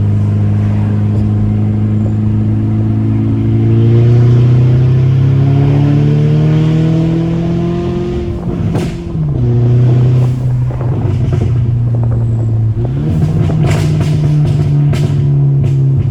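Volkswagen Mk6 GTI's turbocharged four-cylinder pulling through a gear, its pitch climbing for several seconds, then dropping at a gear change with a few sharp cracks. It settles at a lower steady note, steps up again, and sharp exhaust pops and crackles come repeatedly over the last few seconds, from a tune that has pops and crackles enabled.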